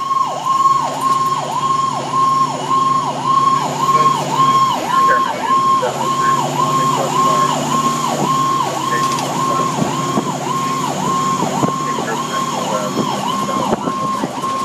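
Fire engine's siren heard from inside the cab, starting suddenly and then dipping in pitch and sweeping back up over and over, about one and a half times a second, with the truck's engine running steadily underneath.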